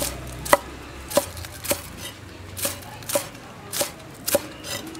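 A cleaver chopping green onions on a thick wooden chopping block: about eight separate sharp knocks, roughly two a second.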